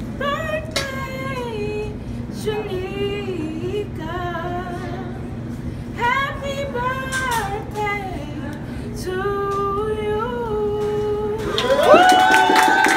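A woman's voice singing a melody over a steady low hum, with a louder held note coming in near the end.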